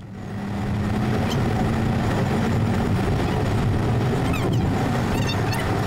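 Car driving along a road, heard from inside the cabin: a steady low engine and tyre rumble that rises over the first second, then holds even.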